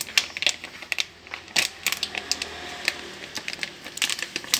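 Plastic packet of crispy-fry batter flour crinkling and tapping as it is shaken out into a plastic box, a quick irregular run of sharp clicks and crackles.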